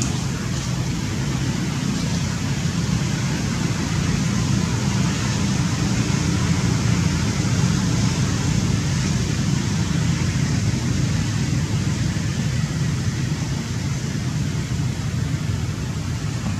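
Steady outdoor background noise: a continuous low rumble with an even hiss over it, without distinct events.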